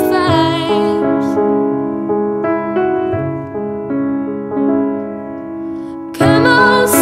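Recorded song in a slow piano passage: piano chords ring on alone after a sung phrase trails off at the start, and the singing voice comes back in with a new phrase near the end.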